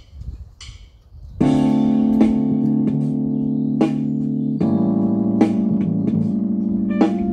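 Gibson Les Paul electric guitar with Burstbucker humbucking pickups, played clean through a battery-powered Roland Cube amplifier with no effects. Strummed chords come in about a second and a half in and ring on, restruck now and then, with a change of chord about halfway through.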